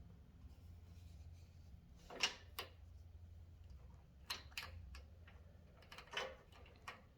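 Scattered sharp metallic clicks and knocks, about six of them, from a saw chain being positioned and worked in a STIHL chain breaker press to push out a rivet.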